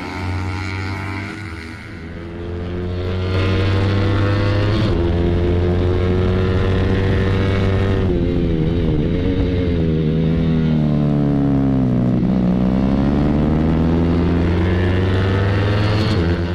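Motorcycle engines racing: faint and distant at first, then a single sport bike's engine heard loud and close at high revs from about three seconds in. Around the middle its revs fall for a few seconds and then climb again.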